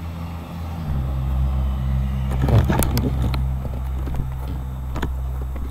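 A steady low engine hum that drops to a lower pitch about a second in, with a few clicks and rustles.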